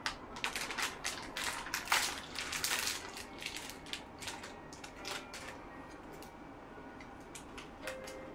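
Plastic cookie wrapper crinkling and crackling as it is handled and torn open by hand, a dense run of crackles for about three seconds, then scattered clicks and rustles.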